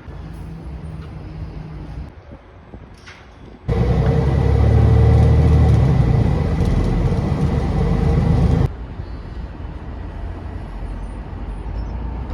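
Low engine rumble of a vehicle in separate cut-together segments, loudest for about five seconds in the middle, where it starts and stops abruptly with a steady high whine over it.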